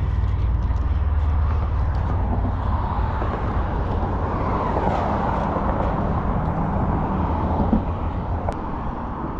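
A steady low engine hum, with a rushing noise that swells and fades in the middle.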